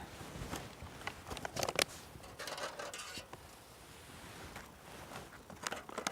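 Scattered clicks, rustles and scrapes of camp gear being handled, with a sharper cluster about two seconds in and another near the end.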